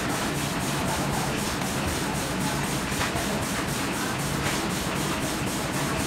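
Steady hissing background noise at an even level, with no distinct knocks or clicks standing out.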